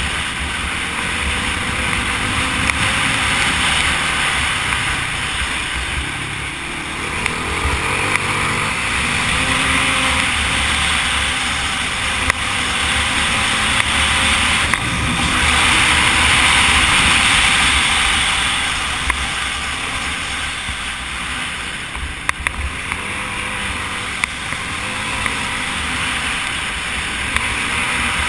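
Onboard sound of a sport quad riding fast on a dirt track: the engine runs and rises and falls in pitch with the throttle, under heavy wind rush on the microphone. Scattered sharp clicks and knocks come from bumps in the track.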